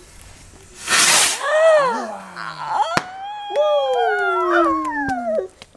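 Small firework going off: a short whooshing hiss about a second in, then a single sharp bang at about three seconds. Around them come long, falling pitched calls that overlap one another.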